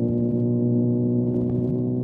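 Motorcycle engine running at steady revs, heard from an onboard camera, its pitch holding even.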